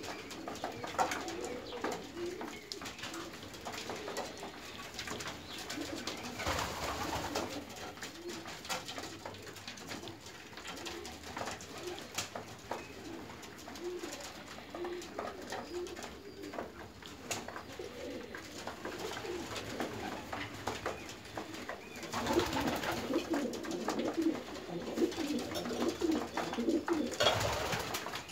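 A flock of domestic pigeons cooing steadily, many short overlapping coos, with scattered clicks and a few noisy bursts of wing flapping; the cooing grows louder and busier over the last several seconds.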